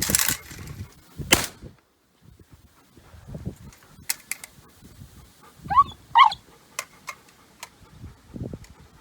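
A dog whining twice in quick succession about six seconds in, two short high calls. Around it are a few sharp clicks, and two brief bursts of rustling noise near the start.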